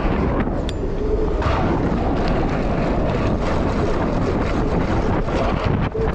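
Wind buffeting an action camera's microphone on a BMX bike's handlebars at speed, over the rumble of the knobby tyres on the track and many small knocks and rattles from the bike.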